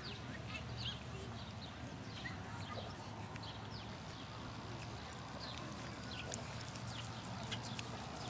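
Horse trotting on a grass dressage arena, its hoofbeats heard under many short, repeated high bird chirps.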